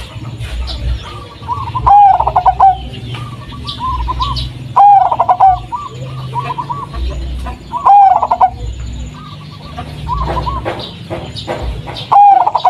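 Zebra dove of the local 'blorok madu' type singing its cooing song, four phrases about three seconds apart, each a quick run of curved, rolling notes.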